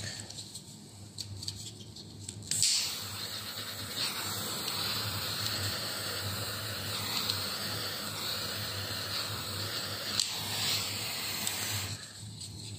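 Small handheld heat gun blowing a steady hiss of hot air to shrink heat-shrink tubing over a soldered wire joint; it switches on a couple of seconds in and cuts off near the end.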